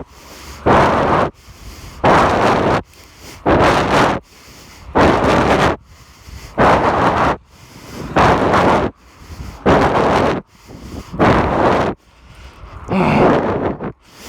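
A cyclist's heavy breathing blowing straight onto the microphone of a phone held in his mouth: a loud rushing exhale about every one and a half seconds, about nine in all, with a quieter rising inhale between each.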